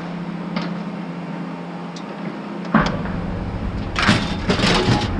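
Truck running, heard from inside the cab, with a steady low hum. A sharp knock comes nearly three seconds in, after which the rumble grows, and a loud rush of noise follows near the end.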